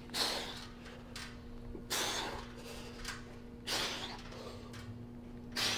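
A man breathing out hard about every two seconds with the effort of each pull-up, four forceful breaths in all, over a faint steady hum.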